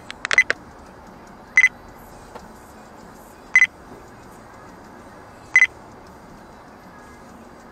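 Three short, high electronic beeps about two seconds apart, after a quick cluster of clicks at the start, over a steady low road noise.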